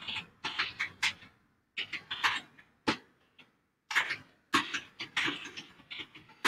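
Computer keyboard typing: several quick runs of keystrokes with short pauses between them.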